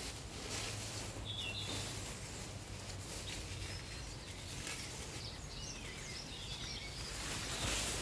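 Garden ambience with small birds calling: a couple of short high chirps about a second and a half in, then a few thin twittering calls. A camouflage net rustles as it is handled, loudest near the end.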